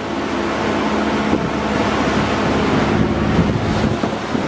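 Boat engine running at a steady pitch under a wash of water and wind noise, growing slightly louder.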